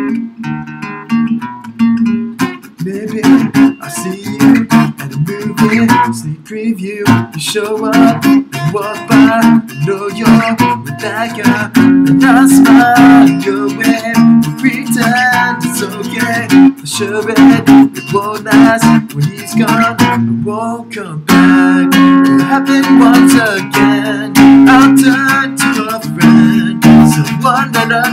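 Acoustic guitar, a few notes picked and left ringing, then steadily strummed, with a man singing along over the strumming.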